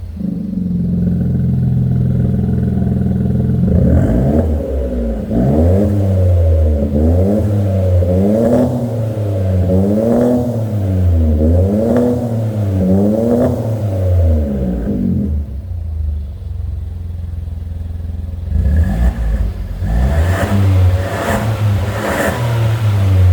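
Suzuki Swift RS 1-litre turbo engine through a stainless cat-back active exhaust, idling, then revved in a string of quick blips about one every second and a half, each rising and falling back. It settles to idle for a few seconds, then is blipped again several times near the end.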